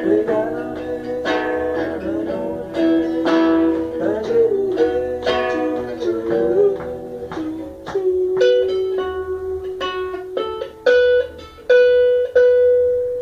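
Band music played live: strummed guitar chords about once a second under a sliding melody line, then the song winds down to a few single struck chords and a long held note that fades away.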